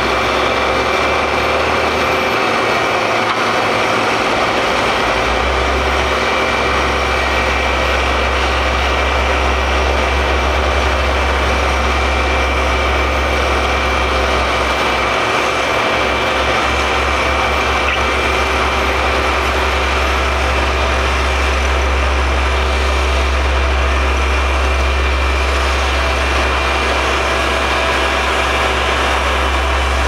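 Diesel engines of road-paving machinery running steadily, with a deep low rumble that drops out twice, once a few seconds in and briefly about halfway through.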